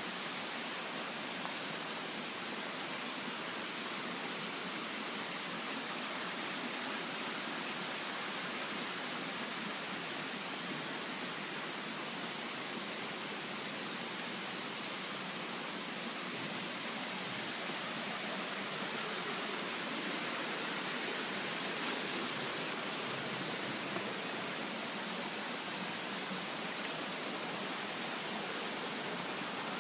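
Creek water rushing steadily: an even hiss without breaks.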